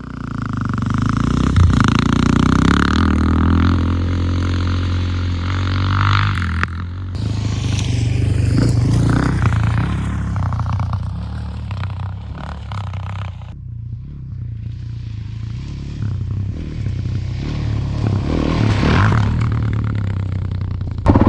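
Suzuki DR-Z dual-sport motorcycle's single-cylinder four-stroke engine, fitted with an aftermarket exhaust, running while being ridden, its level rising and falling with the throttle.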